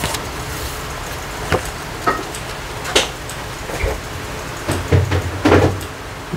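Paper handling as the pages of a small guidebook are turned: a few separate crisp rustles and taps, with a busier patch of rustling about five seconds in, over a steady background hiss.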